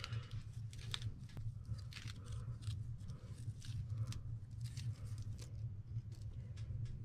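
Aluminium foil crinkling, with small clicks and scrapes from a tin can as a wick is pushed into the foil-covered can, over a low steady hum.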